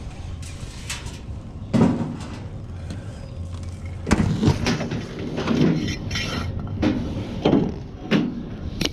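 A series of knocks and clanks from scrap items being handled and loaded, about eight of them, coming thicker in the second half, over a low steady hum like a vehicle engine running.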